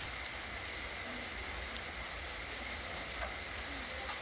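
Steady chorus of night insects, with two light metal clicks about three and four seconds in from the spatula and tongs stirring the wok.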